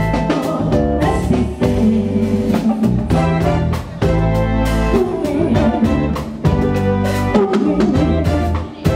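A live band plays with a steady beat on drum kit and hand drum, over bass guitar and sustained melody notes.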